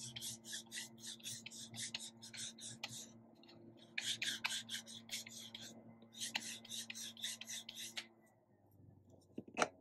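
A small Distress ink pad being rubbed back and forth on a hand brayer's roller to ink it: short scratchy strokes, about three a second, in two runs with a brief pause between. A single sharp tap near the end.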